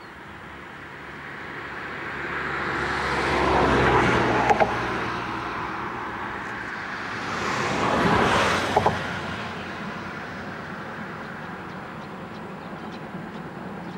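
Two vehicles pass close by, one about four seconds after the other. Each swells up and fades away, with a quick double knock just after its loudest point.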